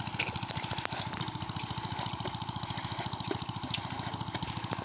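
Small engine-driven water pump running steadily with a rapid, even beat, pumping the water out of a pond.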